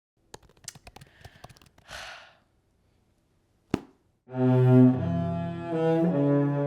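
Faint small clicks and a brief rustle, then one sharp click. A low instrument then plays loud sustained notes, changing pitch a few times.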